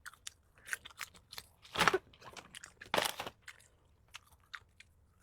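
Close-miked crunching and chewing of a spicy latiao snack strip, a string of short crisp clicks with two louder crunchy bites about two and three seconds in, then softer chewing ticks.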